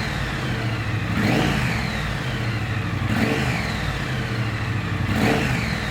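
Triumph Street Twin's 900 cc parallel-twin engine running and being blipped, three rev rises and falls about two seconds apart. The engine is being test-revved after its gummed, stale fuel was cleaned out.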